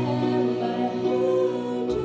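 A girl singing a slow melody into a handheld microphone, holding long notes.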